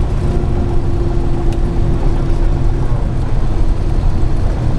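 Single-engine light aircraft's propeller engine running steadily, heard from inside the cockpit as a loud, even rumble with a steady hum that fades out partway through.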